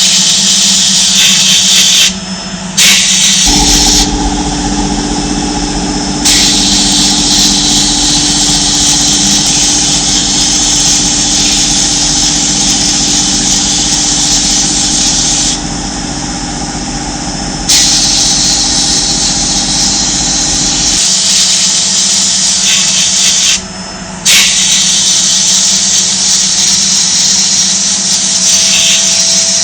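Compressed-air gun hissing loudly in long bursts, cutting out briefly four times as the trigger is let go. Under it, a steady machine hum runs from a few seconds in until about two-thirds of the way through.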